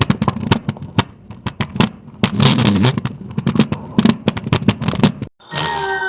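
Stomach growling: a long low gurgle full of rapid irregular crackling pops, cutting off suddenly about five seconds in. Music with steady held notes begins just after.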